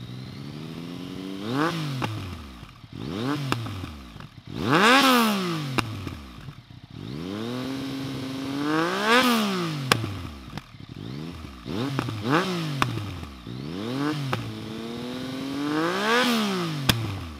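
Yamaha MT-09 three-cylinder engine through an Akrapovic aftermarket exhaust, revved at standstill in a series of throttle blips: quick sharp rises and falls, with a couple of slower builds to higher revs around the middle and near the end. Sharp cracks from the exhaust come between some of the blips as the revs drop.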